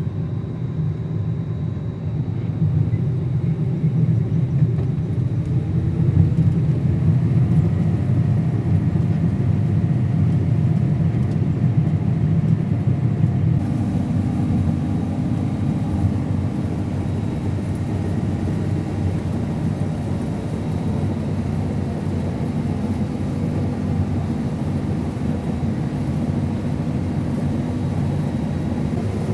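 Combine harvester running steadily, engine and machinery noise throughout. A tone rises a few seconds in, and the sound changes abruptly about halfway through.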